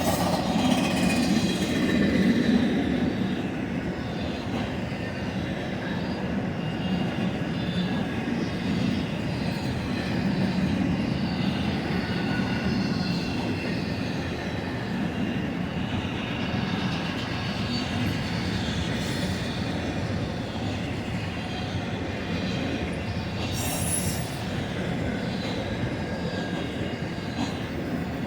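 Intermodal freight train of spine cars rolling past, a steady rumble of steel wheels on rail with wavering high-pitched wheel squeal throughout. A brief, sharper high screech stands out about three-quarters of the way through.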